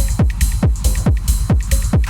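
Electronic dance music: a steady four-on-the-floor kick drum with hi-hats between the beats over a sustained bass.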